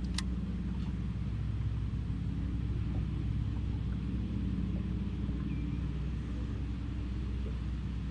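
Boat outboard motor running steadily, a low even drone. A single short click about a fifth of a second in.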